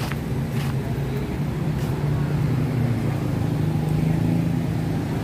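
Street traffic: a motor vehicle's engine running with a steady low hum, growing a little louder about two seconds in.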